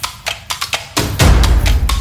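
Background music with a quick, clicking woodblock-like beat, about six strokes a second, and a heavy bass hit about a second in.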